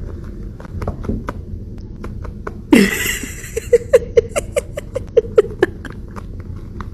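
A person laughing in short, loud, rhythmic bursts, about four a second, starting with a loud breathy outburst about three seconds in, over a steady rustle and light clicks.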